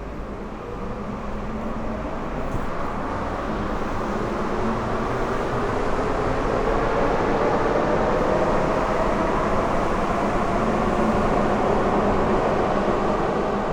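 Bus engine running, growing louder over the first several seconds and then holding steady.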